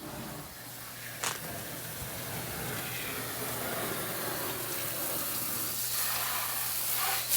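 Water spraying in a steady hiss that grows slowly louder while the hull is washed down, over a steady low hum, with a single sharp click about a second in.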